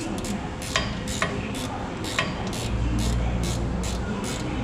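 Ratchet wrench clicking in short, even strokes, about two a second, with a few heavier metal knocks in the first half, as a starter motor is bolted in under a car. A low hum comes in a little past halfway.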